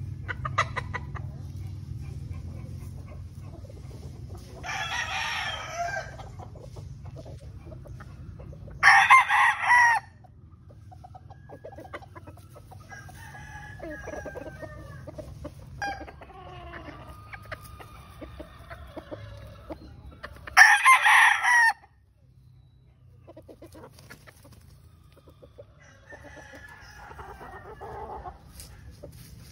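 Gamefowl roosters crowing: two loud, short crows about nine seconds and about twenty-one seconds in, and a softer one near five seconds. Between them, softer clucking and calls.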